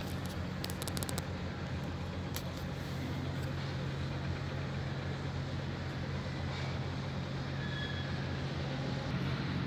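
A motor engine runs steadily with a low, even hum. A few faint clicks come in the first second or so.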